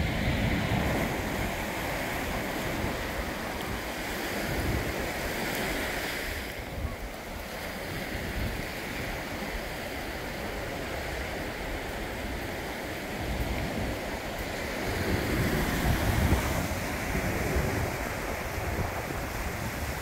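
Small surf waves washing up and running back on a sandy beach, with wind buffeting the microphone. The wash swells a little louder about three-quarters of the way through.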